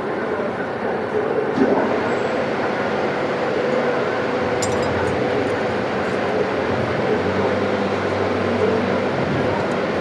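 Steady machine running noise, with a low hum joining about seven seconds in and a few light clicks about five seconds in.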